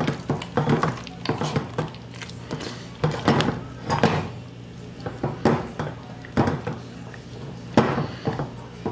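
Potato masher working mashed potatoes and cream cheese in a metal pot: a soft squishing with irregular clacks and knocks, a few a second, as the masher head hits the bottom and sides of the pot. The two loudest knocks come about 4 s and 8 s in.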